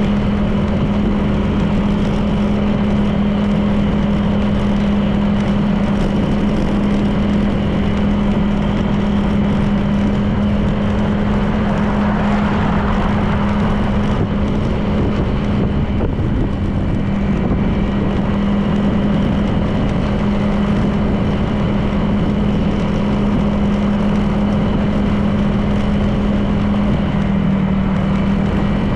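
Honda PCX 160 scooter's single-cylinder engine running at a steady cruise, a constant low drone over wind and road noise. The engine note dips slightly near the end.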